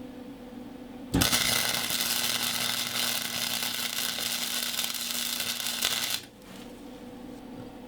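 Wire-feed (MIG) welder laying a bead on thin sheet steel: a steady crackling sizzle that starts suddenly about a second in and cuts off about five seconds later, over a low steady hum.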